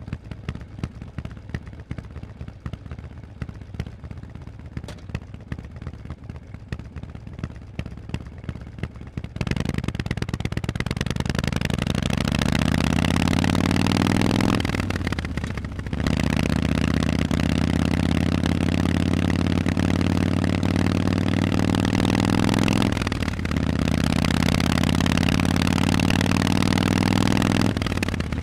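Harley-Davidson Forty-Eight's V-twin through Vance & Hines exhausts, ticking over quietly for about nine seconds, then pulling away hard and accelerating through the gears: the pitch climbs steadily, dips briefly at two gear changes, and climbs again each time.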